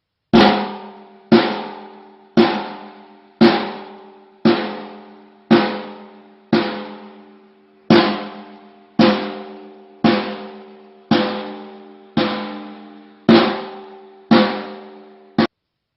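A drum struck at a steady pace of about one hit a second, fifteen hits in all. Each hit rings with a low tone and dies away before the next, and the last one is cut off abruptly.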